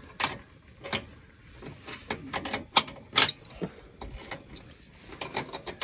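Irregular sharp metallic clicks and taps of a wrench working a bolt on a truck's aftermarket upper control arm in the front suspension.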